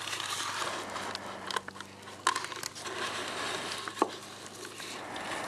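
A bag of dry refractory cement being handled, crinkling and rustling, with a couple of sharp clicks about two and four seconds in.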